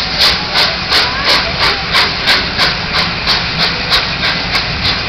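The LNER Peppercorn A1 steam locomotive 60163 Tornado working, its three-cylinder exhaust beating evenly at about three chuffs a second over a steady hiss of steam. The beats stop near the end.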